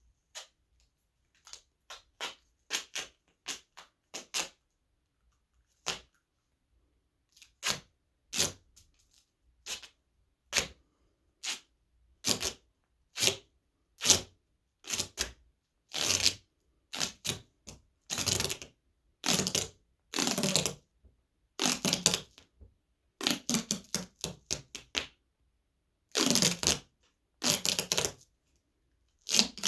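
Foley sounds made by handling objects: a series of short clicks and clattering noises with silence between them, sparse at first, then coming longer and closer together from about halfway through.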